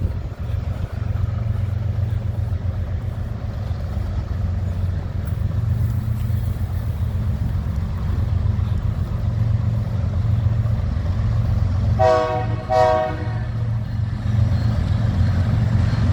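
Diesel freight locomotives rumbling past slowly, with two short locomotive horn blasts about twelve seconds in.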